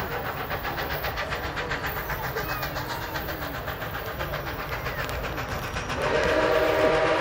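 Nickel Plate Road 765, a 2-8-4 Berkshire steam locomotive, approaching with a fast, even exhaust beat. About six seconds in, its steam whistle starts blowing a loud, steady chord.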